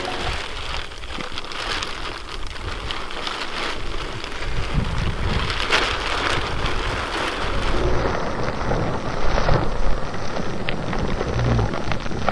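Thin plastic balloon film rustling and crackling as it is unrolled and handled, with wind rumbling on the microphone.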